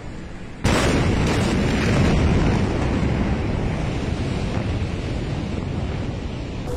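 Blast wave of the Beirut port explosion reaching the microphone: a sudden loud boom less than a second in, then a long noisy rush of wind buffeting the microphone that slowly fades.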